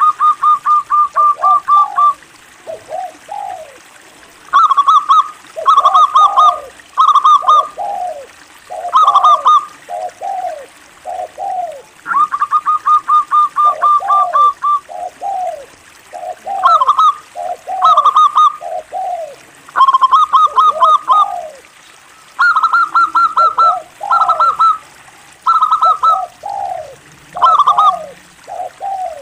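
Zebra dove (local perkutut) singing: repeated phrases of quick, clipped high coos running into lower, falling coo notes, with short pauses between phrases.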